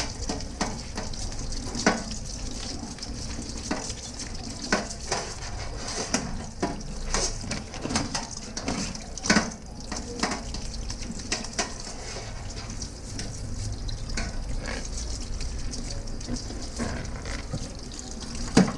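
Tap water running steadily into a stainless steel sink while a toothbrush scrubs a Dungeness crab's shell, with scattered clicks and knocks of shell and legs against the sink, the sharpest near the end.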